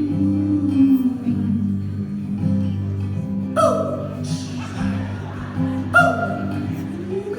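Live band music: a slow, guitar-led instrumental passage over a steady bass line, with two sustained notes that bend down in pitch.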